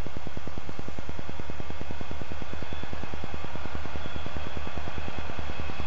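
Southern Pacific EMD diesel helper locomotives running as they approach, their engines giving a rapid, even throb over a steady low hum.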